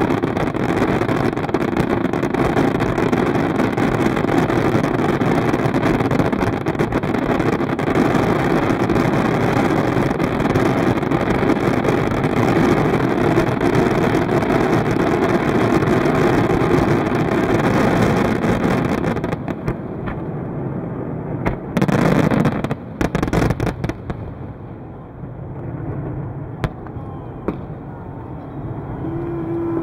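Fireworks going off: a dense, continuous barrage of bangs and crackles for the first two-thirds, thinning out after about 19 seconds. One more loud burst comes a little past 22 seconds, followed by scattered single cracks as the display dies away.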